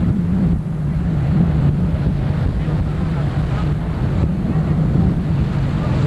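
Offshore racing powerboats' engines droning steadily, mixed with wind buffeting the microphone.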